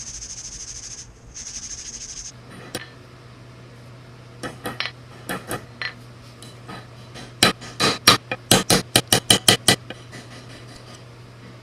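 A steady hiss that stops about two seconds in, then light metallic taps: scattered at first, then a quick run of about a dozen, four to five a second.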